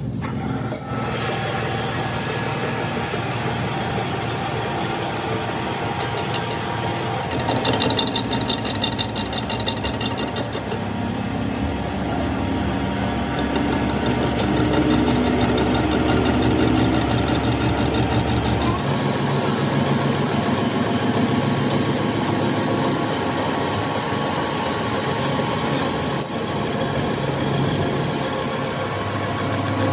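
A machine running steadily with a low hum; the hum changes about two-thirds of the way through, and there are spells of fast, high rhythmic ticking.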